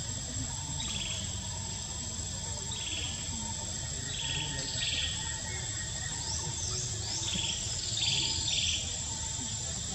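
Short, high chirping calls, several at a time and thicker in the second half, over a steady high-pitched drone.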